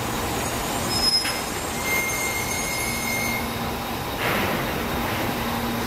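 Trains running over the curved points and track of a busy station throat: a steady rumble with high, thin squeals of steel wheels on curves, strongest in the first half, and a brief swell a little after four seconds.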